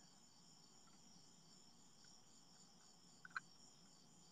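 Near silence: room tone with a faint, steady, high-pitched pulsing chirr, and two small clicks about three seconds in.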